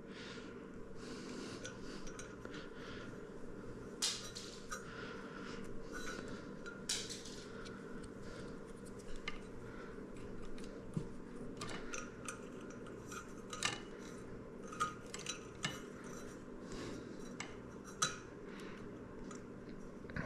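Hands working stiff electrical wires at a ceiling junction box: scattered small clicks, clinks and rustles of copper wire and metal at irregular moments, over a faint steady hum.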